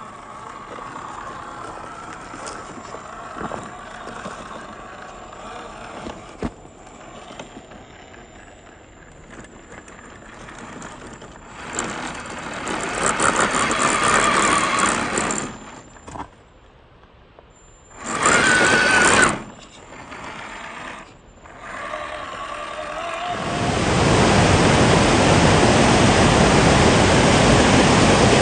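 A small RC car's electric motor running and revving, with gliding whines that rise and fall, broken by louder rushing bursts. Near the end a loud steady rushing noise takes over.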